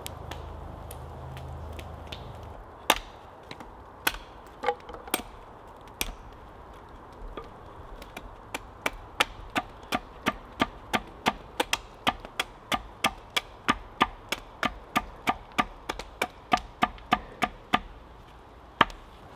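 A hatchet chopping a point onto the end of a green wooden stake held upright on a chopping block: a few scattered blows, then a steady run of about two chops a second.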